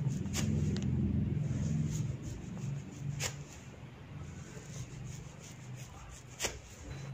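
Hair-cracking snaps as locks of hair are tugged hard, three sharp cracks about three seconds apart, the last the loudest, over a low hum that is strongest in the first two seconds.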